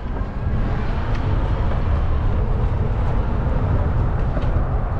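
Wind rumbling on the microphone, mixed with tyre noise, while riding a fat-tyre e-bike along a trail. The rumble steps up about half a second in and then holds steady.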